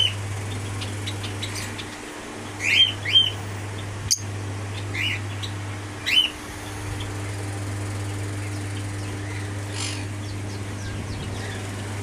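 Caged lovebirds giving short, high chirps, about five in the first half, over a steady low hum. A single sharp click sounds about four seconds in.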